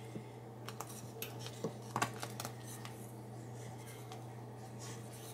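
Wooden spoon stirring strawberry jam at a hard rolling boil in a steel pot, scraping and knocking lightly against the pot's sides and bottom, the sharpest knock about two seconds in. A low steady hum lies underneath.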